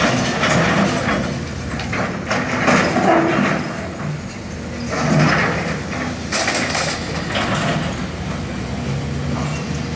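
Diesel engine of a demolition excavator running, with irregular louder surges of crashing and scraping as building rubble is worked.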